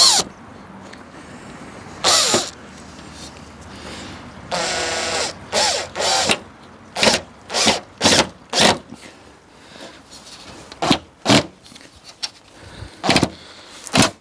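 Power drill driving a screw into a pre-drilled hole in recycled-plastic panelling: a few longer runs of the motor whine, then a string of short trigger blips as the screw is pulled in flush.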